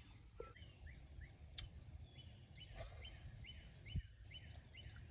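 A bird calling in a run of short, repeated high chirps, a few each second, over faint low outdoor rumble. A few sharp clicks and one low thump near the end of the run stand out.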